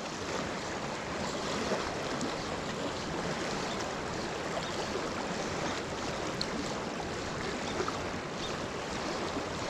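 Fast, riffled river current rushing steadily past.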